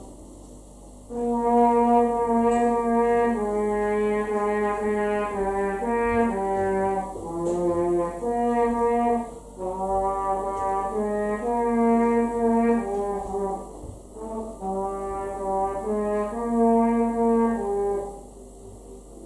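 A brass horn playing a slow melody of long held notes. It comes in about a second in, breaks briefly about two-thirds through, and stops shortly before the end.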